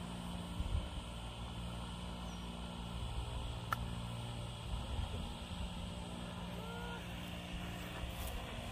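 Golf club striking the ball on an approach shot: one sharp click a little under four seconds in, over a steady low hum.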